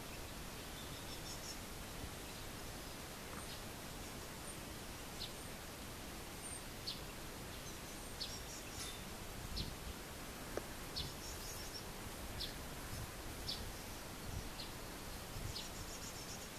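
Outdoor ambience: a steady faint hiss with short, high chirps scattered throughout, and a few soft low thumps near the middle.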